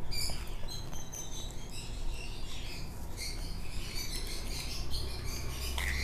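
Baby birds squeaking: many short, high-pitched cheeps in quick succession. These are typical of chicks begging while being hand-fed.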